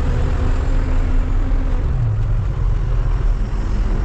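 Truck engine running with a steady low road rumble, heard from inside the cab while driving.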